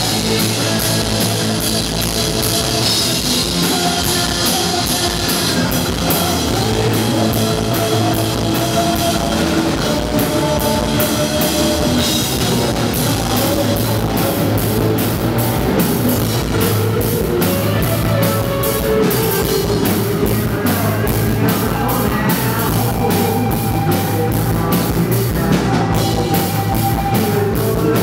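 Rock band playing live: a pounding drum kit with a steady beat, electric guitars and a male lead vocal, heard from among the crowd.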